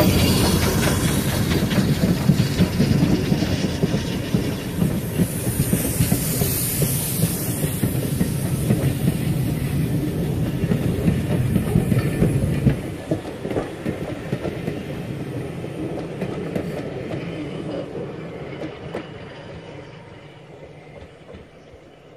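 Steam train hauled by a BR Standard Class 4MT locomotive rolling close past, its coach wheels clattering over the rail joints. The noise drops suddenly about thirteen seconds in as the last coach goes by, then fades as the train runs away.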